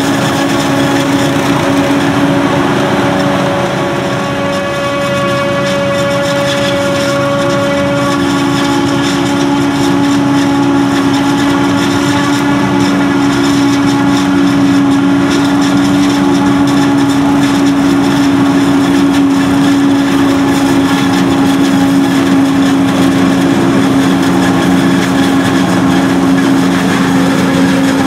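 John Deere self-propelled forage harvester running under load as it chops standing maize for silage, a loud steady drone with a strong held hum, together with the engine of the tractor pulling the silage trailer alongside. A higher tone in the drone fades out about eight seconds in.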